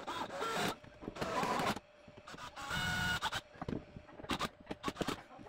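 Three short runs of a small electric motor, each under a second and carrying a steady whine, followed by a few light clicks and knocks.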